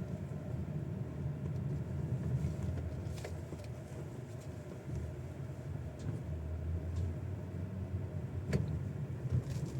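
Car cabin road rumble of a GAC GS8 II on uneven road, with several short, sharp knocks from under the steering wheel, the loudest near the end. The knock is clear and ringing and comes when the car's weight rocks from side to side over bumps; its cause is unknown to the owner.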